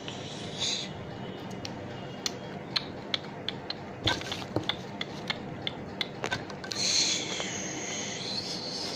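Small plastic toy kitchen pieces clicking and clattering as they are handled, in an irregular string of sharp clicks, with a short high hiss near the start and a longer one near the end.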